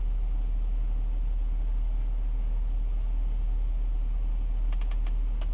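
A steady low hum, with a few quick faint clicks near the end.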